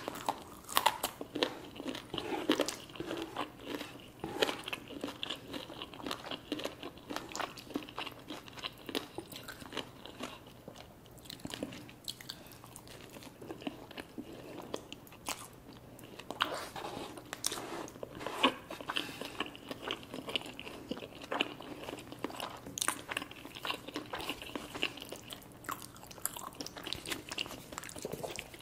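Close-miked eating of chicken wings and creamy alfredo pasta: a steady run of crunchy bites and chewing, with many small clicks and wet smacks.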